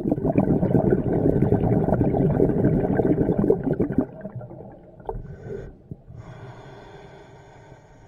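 A scuba diver breathing through a regulator underwater: a loud, crackling burst of exhaled bubbles for about four seconds, then after a pause a steady hissing inhale through the regulator.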